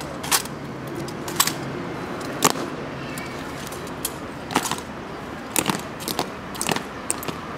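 Honor guard rifle drill: about nine sharp, irregular clacks and metallic clinks as bayonet-fixed M1 Garand rifles are spun and slapped into gloved hands and boot heels strike the stone paving, several coming in quick succession in the second half.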